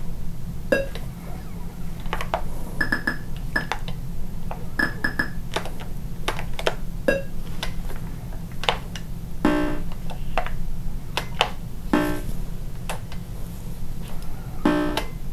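TRS-80 Color Computer game sound effects: short electronic beeps and blips at an irregular pace over a steady low hum.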